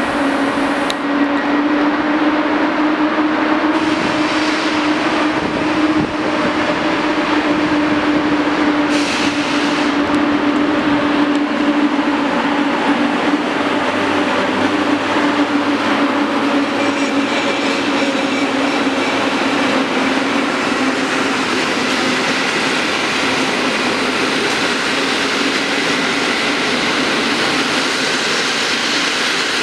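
PKP EP08 electric locomotive hauling passenger coaches past at low speed, with a steady hum from the locomotive over the rumble of wheels on rail; the hum fades as the coaches roll by in the last third.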